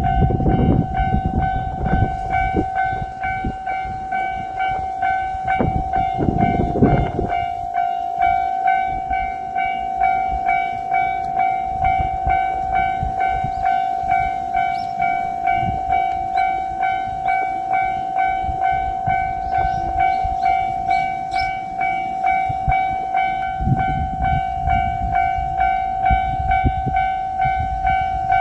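Japanese level-crossing warning bell ringing steadily, one repeated electronic ding a little faster than once a second. A train's low rumble runs under it for the first seven seconds and again near the end.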